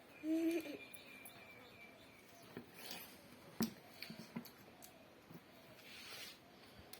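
Eating sounds: scattered soft clicks and taps of mouth and utensils, the sharpest about halfway through, after a brief pitched voice-like sound just after the start.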